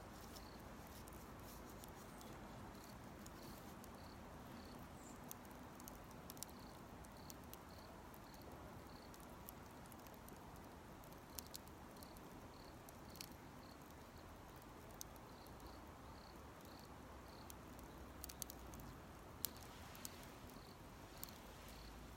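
Campfire crackling faintly, with scattered sharp pops, the loudest near the end. An insect chirps steadily about twice a second behind it.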